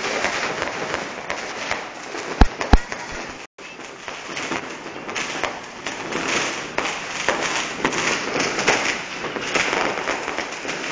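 Fireworks going off at close range, spraying sparks with a dense, steady crackle and hiss. About two and a half seconds in come two sharp bangs, a quarter-second apart.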